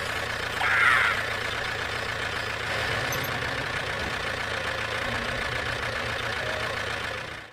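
Small engine running steadily, with a brief higher hiss about a second in; the sound cuts off suddenly at the end.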